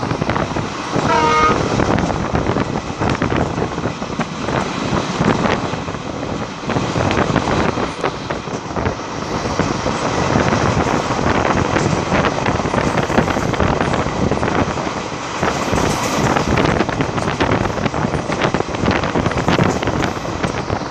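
Passenger train running at speed, heard from an open coach door: wheels clattering over the rails amid steady wind and running noise. A short locomotive horn toot sounds about a second in.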